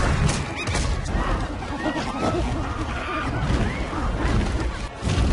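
Film soundtrack of a wild animal fight: a bear, a panther and wolves charging and clashing among a crowd of monkeys. Many short rising-and-falling animal cries and screeches over a heavy low rumble, broken by sharp crashes and thuds, the hardest just after the start and again near the end.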